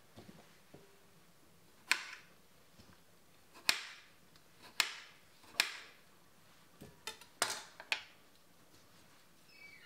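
Knife knocking against a cutting board while cutting up fruit: about seven sharp, irregular knocks, roughly one a second.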